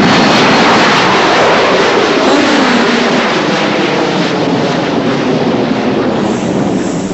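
Jet engines of a Boeing 747 airliner at take-off thrust, a loud, steady noise that slowly fades as the plane climbs away.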